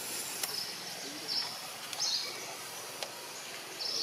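Outdoor woodland ambience: a steady high hiss with four short, high chirps spaced about a second apart.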